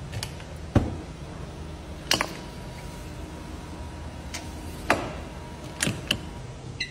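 Handling of a Rolls-Royce Phantom's rear-hinged rear door: about six sharp clicks and knocks as the handle and latch work, the umbrella is drawn from its holder inside the door, and a button on the door is pressed. A faint steady tone runs under the middle.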